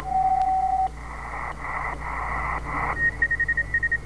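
Receiver audio from a CB radio converted to the 20-metre ham band, being tuned down the band: a steady whistle for the first second, then patchy hiss, then from about three seconds in a Morse code signal beeping in short on-off tones.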